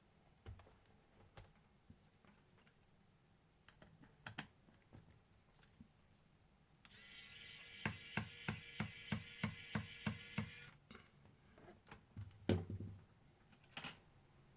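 A small motorized hand tool runs for about four seconds with a steady whir and regular clicks about three times a second, then cuts off; scattered clicks and taps of handling come before and after, with a louder knock near the end.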